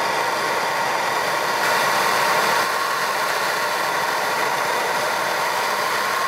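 Handheld gas torch burning with a steady hiss, its flame heating the wheel hub around a seized, broken brake rotor screw to break the corrosion bond in the threads.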